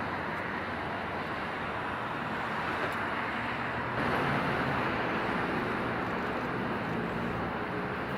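Steady outdoor rushing noise with a low hum underneath, rising a little about four seconds in.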